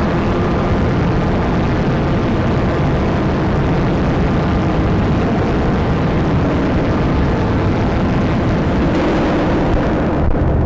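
Dense, steady drone of noise: the video signal from a PXL-2000 camera cassette played back as audio, slowed ninefold, run through a Fostex 4-track and a reverb and distortion pedal. The top end drops away near the end.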